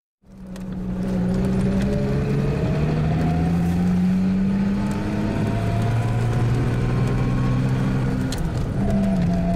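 Car engine running steadily, its pitch rising slowly as it pulls, then dipping briefly and settling again near the end.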